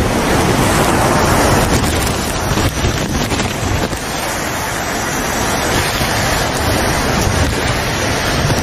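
Strong storm wind and heavy rain: a loud, steady rush of noise, with the wind rumbling on the microphone.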